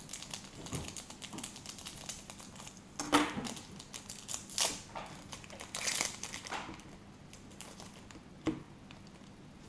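Foil trading-card pack wrapper crinkling and rustling as it is handled and the cards are pulled out, with several louder crackles about three, four and a half and six seconds in and a sharp one near the end.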